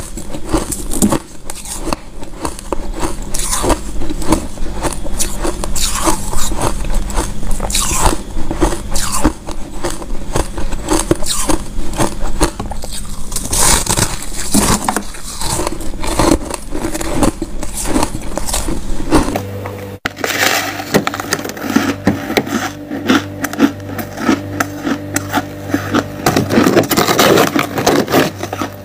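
Close-miked crunching of packed white freezer frost being bitten and chewed: a dense run of crisp crackles. After a change about 19 seconds in, the frost is scraped and crunched as it is handled.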